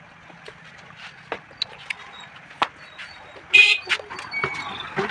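Scattered light knocks and clicks of a truck tyre and its inner tube being handled, with one short loud blast about three and a half seconds in.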